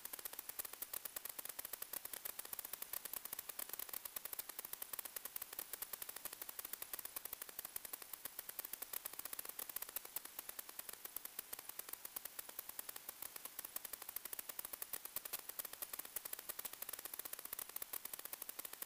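Steady crackling static hiss, dense with rapid fine clicks and carrying no motor or voice, the empty audio channel of an analog 1.2 GHz FPV video link.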